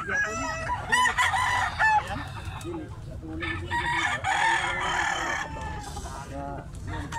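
Several gamecocks crowing over one another, with clucking between the crows.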